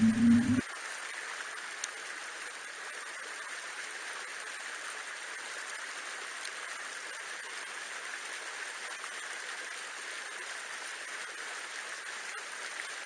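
Steady, even rush of flowing water, like a stream or weir, after the last half-second of intro music.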